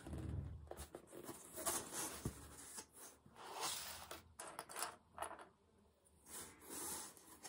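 Rustling and handling of cross-stitch fabric in its frame as it is repositioned: irregular rustles and scrapes, with a soft bump at the start.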